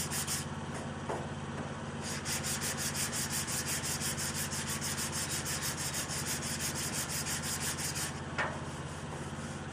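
Sandpaper being rubbed by hand over filler and primer on a car body panel in quick, even back-and-forth strokes. The strokes pause briefly about half a second in and stop near the end, all over a steady low hum.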